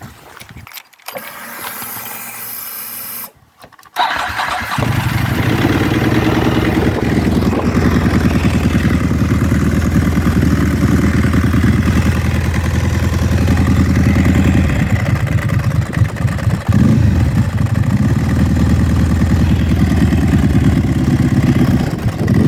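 Ducati 999S's 90° L-twin cranked over by the starter for a couple of seconds, then firing about four seconds in and settling into a loud, lumpy idle on a cold start. The dry clutch, fitted with a new aluminium basket and new friction plates, runs solid rather than clanking.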